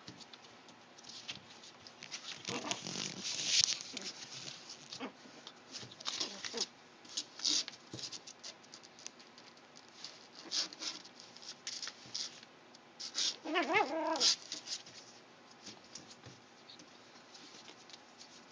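Young puppies squeaking and whimpering in short bursts, with one longer wavering whine about three-quarters of the way through.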